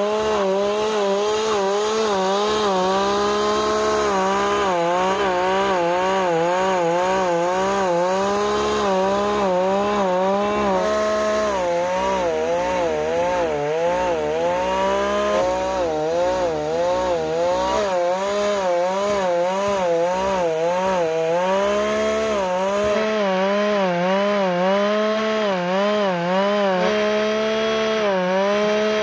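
Two-stroke brush cutter engine running fast and driving a drill bit through its flexible shaft into an oak log. The engine's pitch dips and recovers again and again as the bit bores hole after hole.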